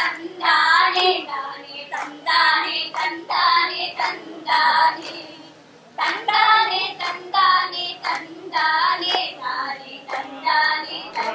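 A high-pitched voice singing a song in short phrases over soft musical accompaniment, with a brief lull about five seconds in.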